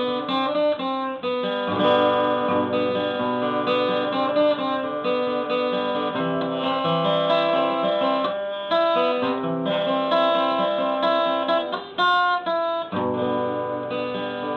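Instrumental music: a plucked guitar playing a melody over chords.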